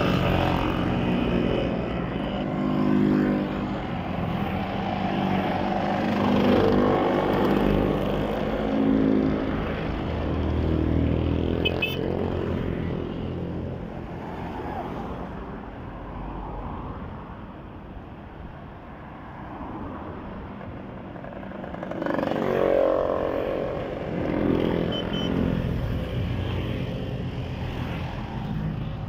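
A procession of motor scooters riding past one after another, their small engines swelling and fading as each group goes by. There is a quieter lull near the middle as other traffic passes.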